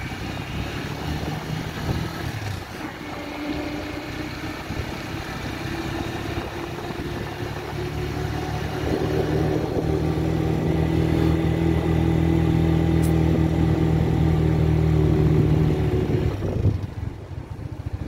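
Motorcycle engine running as the bike rides along, its steady note growing louder in the second half and then dropping off shortly before the end.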